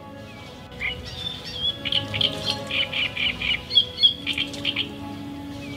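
Birds chirping in quick runs of short calls, starting about a second in, over soft background music with long held notes.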